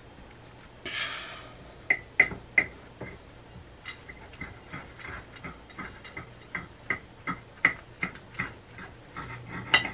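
A table knife cutting through a cheeseburger on a plate: a string of light clicks and taps of the blade against the plate, about two to three a second, with a short scrape about a second in.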